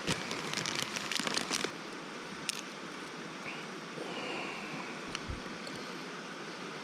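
A mountain stream rushing steadily, with a cluster of sharp crackling clicks in the first second and a half and a few single clicks later. A brief high chirp and a longer falling high tone come about midway.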